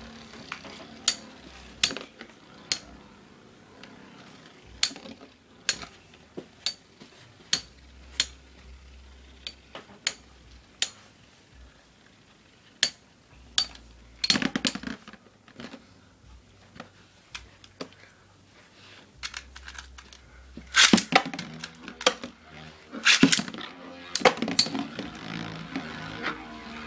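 Beyblade spinning tops clashing in a plastic stadium: scattered sharp clacks and clicks, with rapid runs of hits about halfway through and again near the end.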